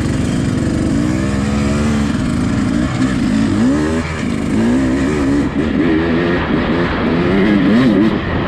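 Beta RR250 enduro motorcycle's engine pulling away and riding, revving up and down, its pitch rising and falling repeatedly with the throttle.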